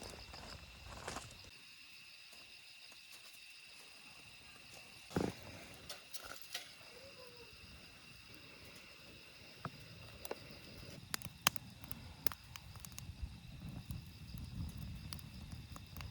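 Night insects chirping in a steady high chorus, with scattered sharp clicks and knocks, and a low rumble building over the last few seconds.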